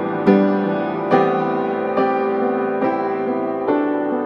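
Slow background music: chords struck a little more than once a second, each ringing on and fading.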